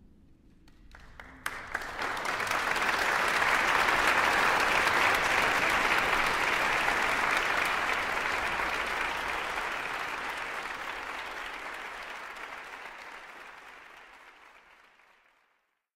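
Audience applauding: a few scattered claps about a second in, swelling quickly into full applause, which then gradually fades away near the end.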